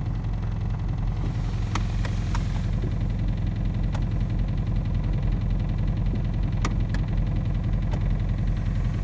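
Audi A3 1.4 TFSI turbocharged four-cylinder petrol engine idling warm, a steady low hum broken by a few sharp clicks at irregular intervals; the owner calls it a strange engine noise at warm idle.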